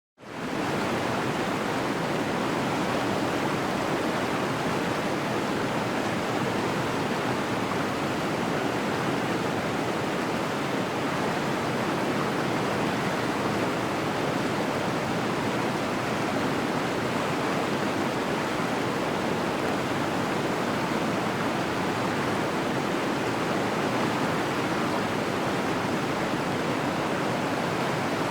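Steady, unbroken rushing of a large waterfall, Háifoss, fading in over the first half second and then holding level.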